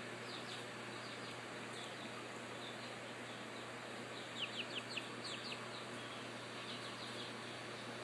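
Young chicks peeping: short falling peeps, scattered and in a quick cluster about four to five seconds in, over a steady low hum.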